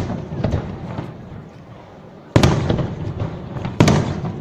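Fireworks display: aerial shells bursting. Two loud booms about a second and a half apart come in the second half, with smaller pops between them and the echo of each boom trailing off.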